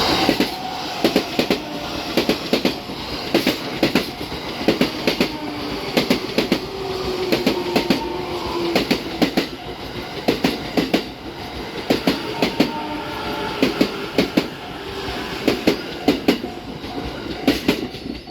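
JR East 353 series electric train running past, its wheels clacking over the rail joints in pairs about every second, over steady running noise.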